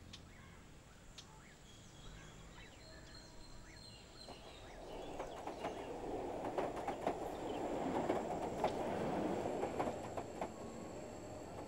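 A rumble with rapid clattering clicks through it that builds from about four seconds in, peaks, and eases off near the end, like a passing train. Faint bird chirps are heard before the rumble builds.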